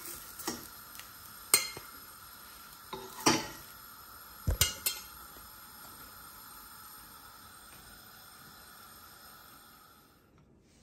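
Metal spatula clicking and scraping against a non-stick frying pan while lifting out slices of egg-dipped bread, with several sharp clicks in the first five seconds. Underneath, a light steady sizzle of frying that fades out near the end.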